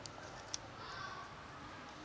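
Faint outdoor background with distant voices and a single sharp click about half a second in.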